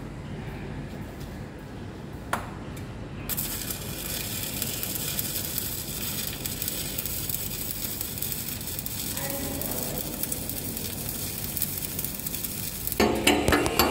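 Stick-welding arc crackling and sizzling steadily from about three seconds in, a low-hydrogen LB-52 (E7016) electrode burning at 70–80 amps on a 6-inch steel hydrant pipe joint. Sharp, evenly spaced knocks begin just before the end.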